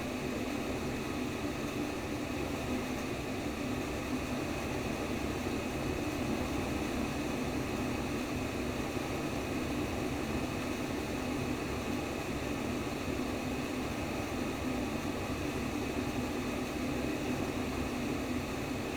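Steady womb-sound white noise: an even, unbroken whoosh, strongest in its low, muffled range, with no beat or change.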